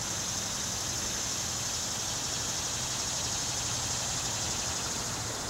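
A steady, high-pitched insect drone, with a low steady rumble beneath it.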